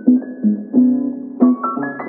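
Light instrumental background music: a melody of short pitched notes, each starting sharply, over a steady low accompaniment.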